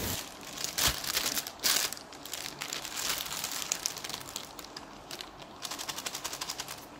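Paper takeaway wrapper crinkling and crackling as noodles are tipped out of it onto a plate, with a few louder clicks in the first two seconds.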